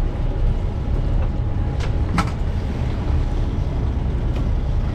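Steady low rumble of a sportfishing boat's engines running, with two short sharp knocks about two seconds in.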